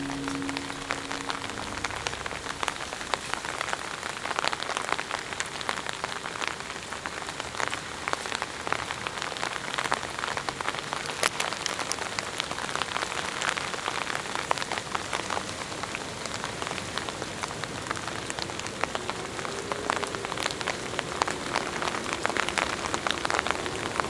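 Steady rain falling, with many sharp drop hits close by. The last notes of a music track fade out in the first second or two.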